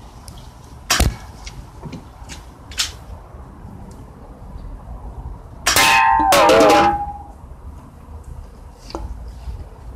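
HFC HA118EL BB pistol firing at an aluminium cider can: a sharp shot about a second in and a fainter click near 3 s. About 6 s in the can is knocked over onto the wooden table, a loud metallic clatter with ringing that lasts about a second.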